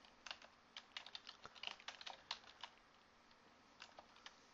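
Faint keystrokes on a computer keyboard: a quick run of typing for about two and a half seconds, a pause, then a few more keys near the end.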